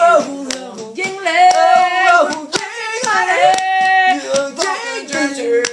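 Voices singing a drinking song with long held notes, with hand claps struck along with it.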